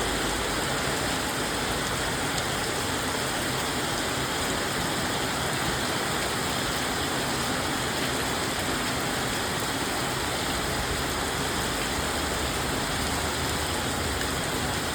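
Steady, even hiss of falling water, like rain or a waterfall, with no change throughout.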